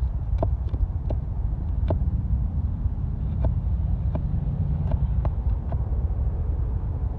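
Wind rumbling on the microphone, with scattered short light taps or knocks about every half second to second.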